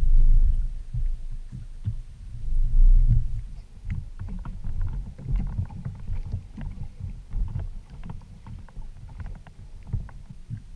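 Lake water lapping and slapping against a small boat's hull: a low rumble that swells loudly twice in the first few seconds, then a run of short, light knocks and splashes.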